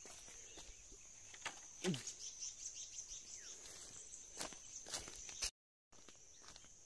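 A few scattered footsteps crunching on dry leaf litter over a steady high-pitched insect drone. The sound cuts out completely for a moment about five and a half seconds in.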